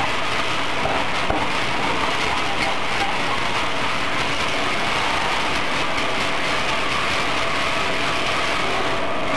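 Octagonal peanut flavoring drum turning steadily, flour-coated peanuts tumbling inside it with a continuous rattling rush over the machine's running noise.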